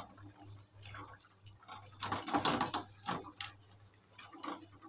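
Curry bubbling at the boil in an aluminium kadai, with irregular plops and splashes as fried fish-roe fritters are dropped into it by hand. The loudest splashes come about two seconds in.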